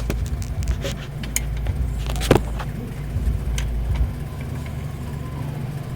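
Wrench tightening the alternator's mounting bolt after the drive belt has been tensioned: irregular metallic clicks and knocks, the loudest about two seconds in, over a steady low hum.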